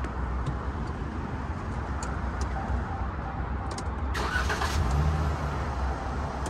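Steady low motor-vehicle rumble, with a brief hissing burst about four seconds in.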